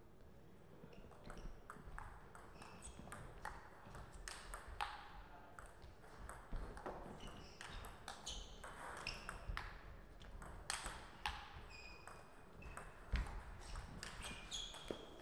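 Table tennis rally: the ball clicking back and forth off the rackets and the table in quick, irregular hits, the loudest about two thirds of the way through.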